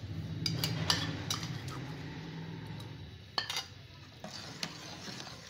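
A metal ladle stirring thick carrot, rice and milk pudding (gajrela) in a steel pot, clinking and scraping against the pot several times. A low hum runs underneath and fades away.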